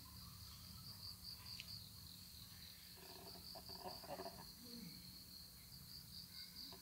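Crickets chirping faintly in a steady, pulsing high trill, with soft handling noise from a small stainless steel sauce cup about halfway through.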